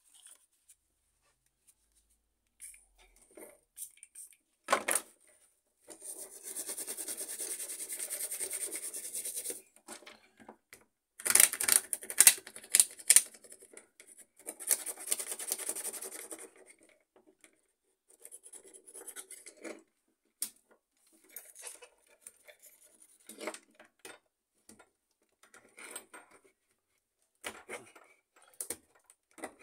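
Rubbing and scraping on the heater bar of an HP LaserJet M607 fuser as it is cleaned: a steady stretch of scrubbing about six seconds in, then harder scraping with sharp clicks, and small handling clicks and taps through the rest.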